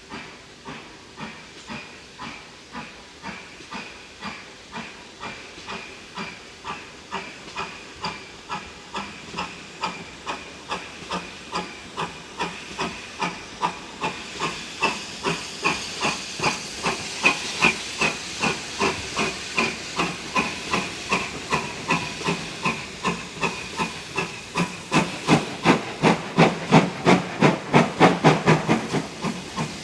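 Steam locomotive 4930 'Hagley Hall', a two-cylinder GWR Hall-class 4-6-0, working a goods train with a steady, regular exhaust beat. The beats grow steadily louder and a little quicker as it approaches.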